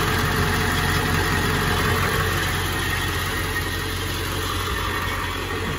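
Ford F-550's 7.3L Powerstroke turbo-diesel V8 idling steadily, heard close to its exhaust outlet.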